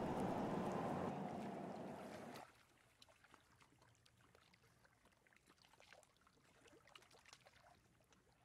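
Water sounds: a steady rush of water that drops away suddenly about two and a half seconds in, leaving faint small lapping and dripping sounds.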